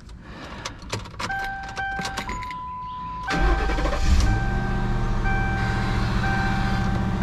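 Ford Crown Victoria Police Interceptor's 4.6-litre V8 being started: key clicks and repeating dashboard warning chimes, then the starter cranks briefly about three seconds in and the engine catches and settles into a steady idle. It is the first start after the battery was disconnected and reconnected to reset the engine computer.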